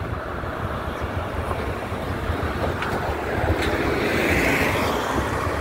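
A city transit bus driving past at close range. Its engine and tyre noise build as it approaches and peak as it passes, about four seconds in, over steady street traffic.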